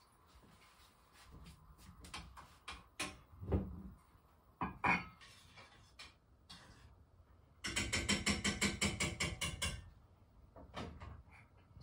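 A few scattered knocks and clicks, then a rapid mechanical rattle of about ten clicks a second lasting roughly two seconds.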